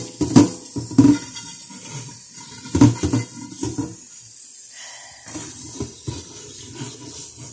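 Tap water running onto a metal pan in a stainless steel sink while it is scrubbed with a brush, with a few loud clunks of the pan or brush in the first few seconds.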